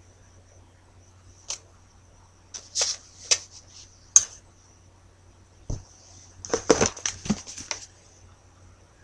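Handling noise as a paper index card is put down and a plastic bottle is picked up close to the microphone: a few sharp clicks and rustles in the first half, then a denser run of clatter a little after halfway. A faint steady high hiss runs underneath.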